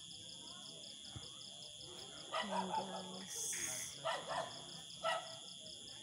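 Night insect chorus: crickets trilling steadily at a high pitch, one of them in an even pulse. From about two seconds in, a handful of short, louder sounds stand out over it.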